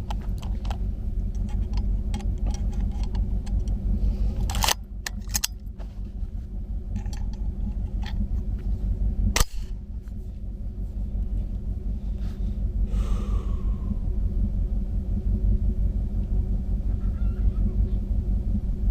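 Steady low wind rumble on the microphone, with a few sharp clicks and one louder sharp crack about halfway through.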